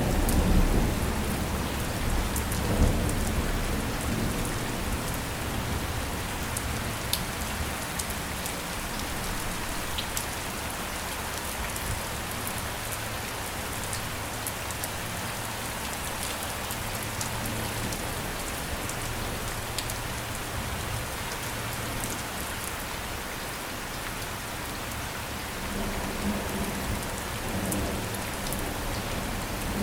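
Steady rain falling, with fine drop ticks through it. A low rumble of thunder dies away over the first few seconds, and a fainter rumble swells briefly near the end.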